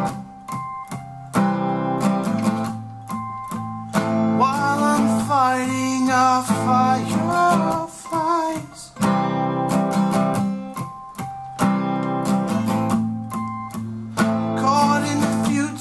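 Two acoustic guitars strummed and picked together, with a man singing over them about four seconds in and again near the end.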